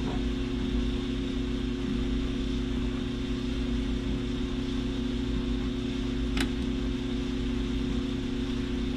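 Steady machine hum with a constant low drone, from a fan or motor running in the room, and one small sharp click about six seconds in from the small screwdriver working a screw into the mini PC's metal rear bracket.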